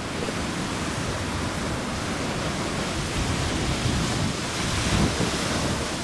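Rough sea surf breaking and rushing against a rock breakwater in strong onshore wind, with wind buffeting the microphone; the waves swell a little louder about four to five seconds in.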